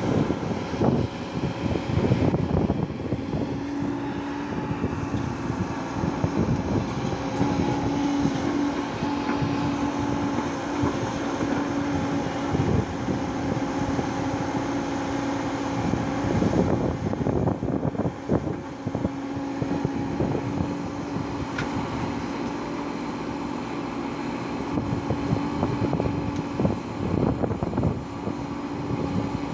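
Diesel engines of a Hyundai 140 crawler excavator and a Tata tipper truck running together while the excavator digs and swings its bucket over the truck. A steady engine hum sets in a few seconds in and holds, with uneven rumbling over it.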